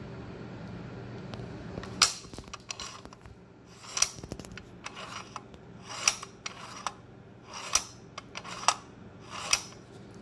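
Rifle bolt being cycled over the magazine in a Magpul Hunter stock: a series of sharp metal clicks and slides, about one a second. There is no paper-shredding drag from the magazine riding the bottom of the bolt, because the magwell is shimmed down about 1 mm with crush washers.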